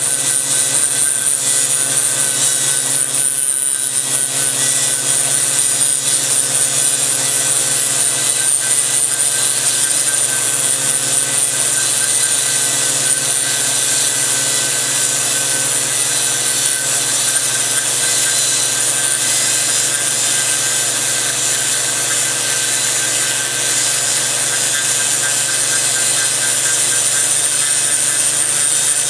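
Big Dog 7x14 mini lathe and a tool-post grinder built from a flexible-shaft carving grinder, both running: a steady motor drone with a constant high whine.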